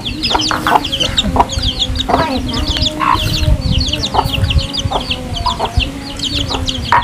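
Chickens peeping and clucking: a continuous run of quick, high, falling peeps, several a second, over a low steady droning tone and a few light knocks.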